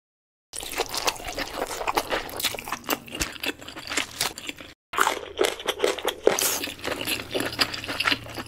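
Dense crunching and cracking, like a shell being broken apart, in two runs of about four seconds each with a short break near the middle.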